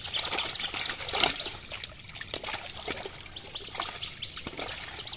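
A netted catch of small fish thrashing in shallow water inside a seine net while hands sort through it: irregular wet splashes and trickling, loudest about a second in.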